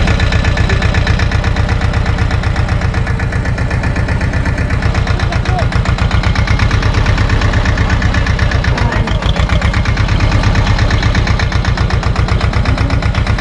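SAME tractor's diesel engine running steadily, a rapid even beat of firing pulses, while the tractor is driven slowly.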